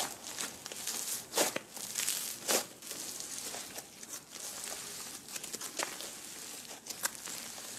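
Thick textured slime being stretched, folded and squeezed by hand: irregular crackling and tearing with sharp pops, the loudest about one and a half and two and a half seconds in.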